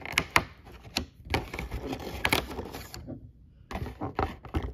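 Fingernails clicking and scraping on a cardboard advent calendar as a numbered door is pried open and the foil-wrapped chocolate behind it is pressed. It comes as a run of sharp, irregular clicks and taps, with a short lull about three seconds in before a few more clicks.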